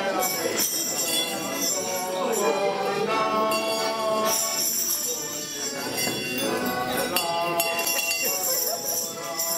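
Folk music played on an accordion, with jingle bells shaken in bursts over it.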